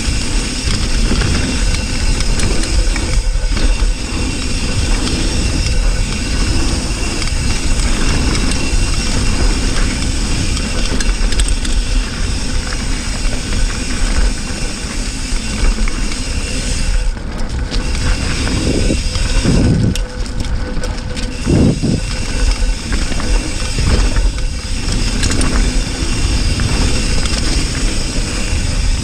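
Wind rushing over a GoPro's microphone and knobby tyres rolling over a dirt trail as a Cannondale hardtail mountain bike is ridden fast, with constant rattle and knocks from the bike over the bumps.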